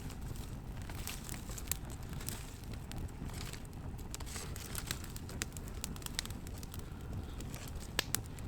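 Small kindling campfire burning, crackling with scattered sharp pops of the burning twigs, two louder pops near the end.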